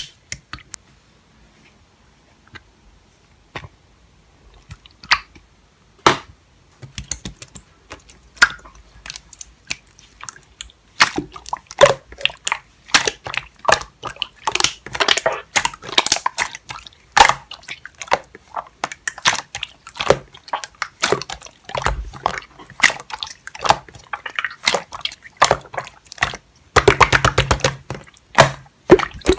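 Wet, sticky clicking and crackling. It starts as scattered clicks and becomes a dense, continuous run about a third of the way in, with a burst of very rapid crackling near the end.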